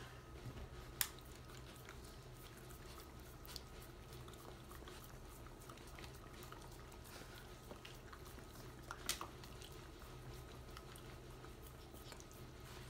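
Faint wet licking and smacking of a dog eating crumbs off a plastic high-chair tray, with a sharper click about a second in and a couple more around nine seconds.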